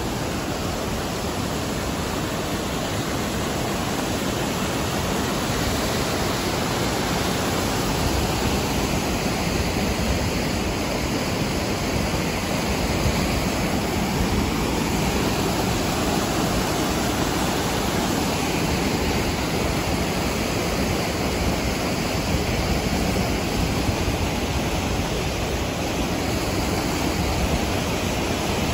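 Rocky creek rushing and splashing over boulders in small cascades: a steady, full rush of water.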